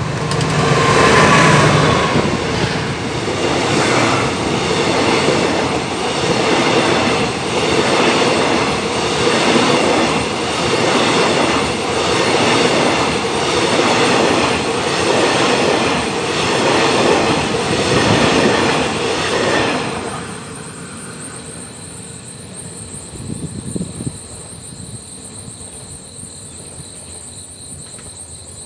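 A CRRC CDA5B1 (QSY) diesel-electric locomotive passes close by at speed, its engine's steady drone loudest in the first couple of seconds. Its passenger coaches follow in a rolling rumble with a clickety-clack of wheels that swells about every two seconds. The train noise drops away sharply about 20 seconds in, leaving a steady insect trill.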